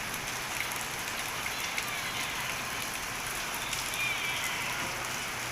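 Steady rain falling: an even hiss with small drop ticks scattered through it.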